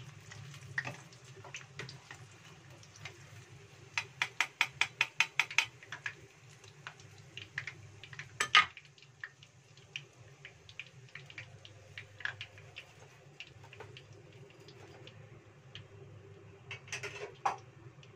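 Metal spoon and wooden spatula clinking and scraping against a nonstick frying pan as fried tofu is lifted out of the oil. A quick run of about a dozen taps comes near the middle, then a single louder knock, all over a steady low hum.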